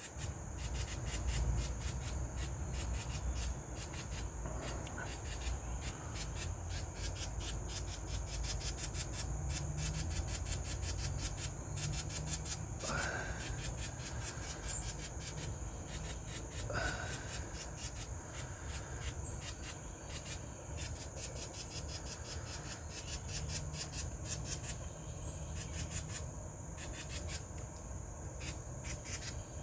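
House wren scolding with a rapid, harsh rasping chatter over a steady high insect buzz and low rumble; two short rising calls come through about halfway in.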